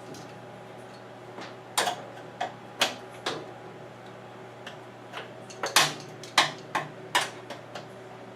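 Flathead screwdriver prying at the plastic top panel of a Whirlpool Cabrio washer to release its clips: a string of sharp clicks and knocks, coming faster after about five seconds.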